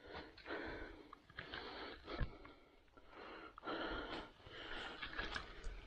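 Footsteps rustling through dry leaf litter and twigs on a forest floor, about one step a second, with a couple of short sharp clicks.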